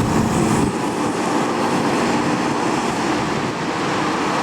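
Tour bus passing on the road: a steady rush of engine and tyre noise. A low steady tone carried over from just before stops under a second in.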